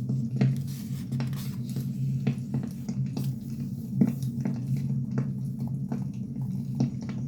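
Firewood burning, crackling and popping at irregular moments over a steady low hum, with one sharper pop about four seconds in.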